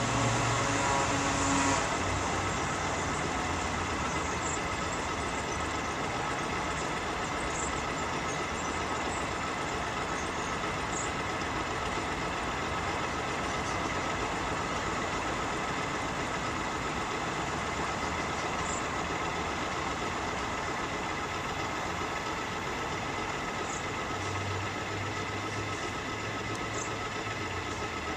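Small experimental vessel's on-board motor running steadily under way, a constant mechanical hum with a thin whine over it, easing slightly after about two seconds.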